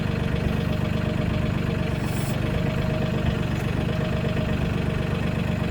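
Mahindra 1626 tractor's diesel engine idling steadily, with a brief hiss about two seconds in.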